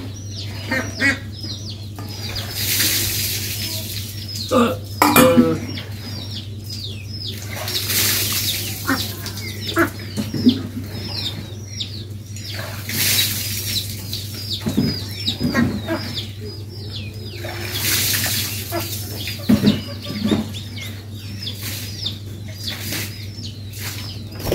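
Chickens calling: a continuous run of quick, high, falling peeps with some clucking. There are occasional knocks and clinks, over a steady low hum.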